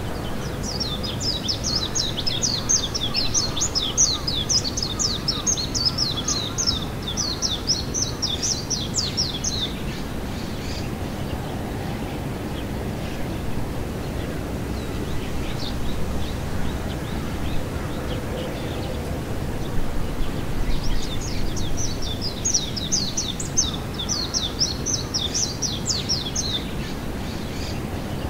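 A small bird singing two long runs of rapid high chirps, about five a second, each lasting several seconds, over steady low outdoor background noise.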